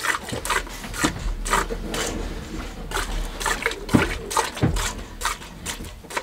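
Milk squirting from a cow's teats into a metal bucket during hand milking, in a steady rhythm of about three squirts a second.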